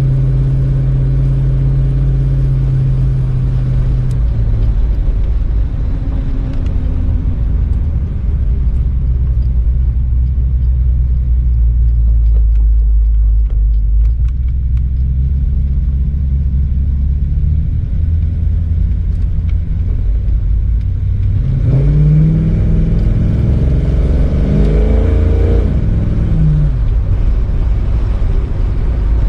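1948 Ford car engine running while driving, a steady low rumble. Near the end the engine pitch rises and falls several times as it accelerates.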